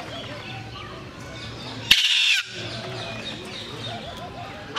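Blue-and-yellow macaw giving one loud, harsh squawk about two seconds in, lasting about half a second.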